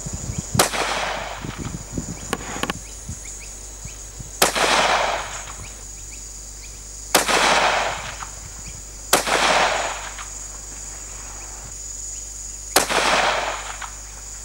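Five shots from a Howa 1500 rifle in .223 Remington, fired two to four seconds apart. Each is a sharp crack followed by about a second of rolling echo. A steady high-pitched buzz runs underneath.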